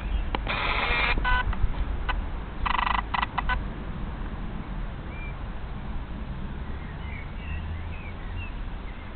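Camcorder zoom motor whirring in two short bursts, about half a second in and again around three seconds in, over a steady low rumble with faint bird chirps.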